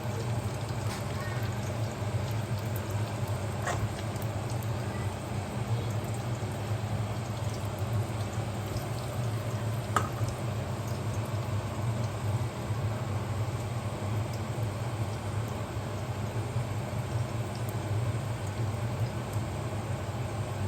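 Breaded chicken schnitzel in a pan of oil that is not yet hot enough, giving a faint, steady sizzle, over a constant low hum. A couple of faint ticks come through, one about four seconds in and one about ten seconds in.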